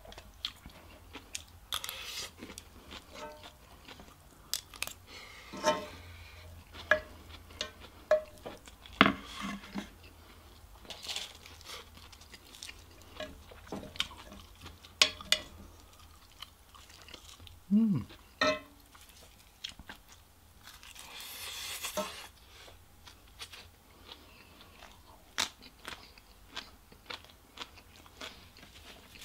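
Close-up eating sounds: chewing and crunching on fried rice wrapped in crisp dried seaweed, with a metal spoon scraping and clinking in a cast iron skillet. Irregular sharp clicks and short crunches, one longer crunch about three-quarters of the way through.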